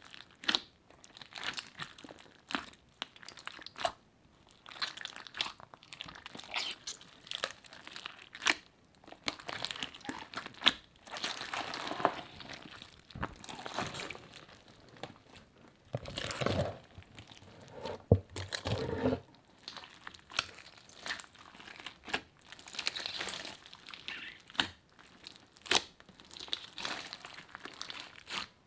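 Slime being kneaded and mixed by hand, with irregular crinkling, crackling and crunching pops from the add-ins. A louder, deeper squishing stretch comes a little past the middle.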